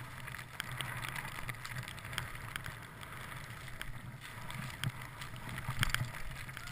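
Skis running through deep powder snow: a steady rushing hiss with wind on the microphone, scattered small clicks, and a couple of louder knocks near the end.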